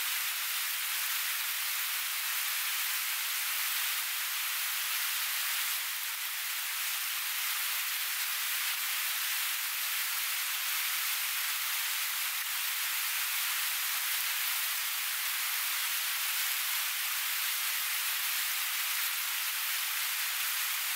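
Steady sizzling hiss of battered banana slices frying in hot oil in a pan over a gas camp stove.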